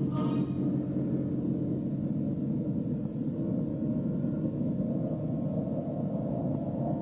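Low, steady rumbling drone on a film soundtrack. The last notes of a choir die away right at the start.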